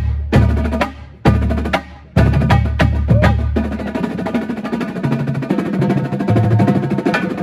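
Drum corps battery of snare drums, tenor drums and tuned bass drums playing a warmup etude. Loud unison accents come about a second apart, then a long passage of dense, rapid snare strokes runs over bass-drum notes that step between different pitches.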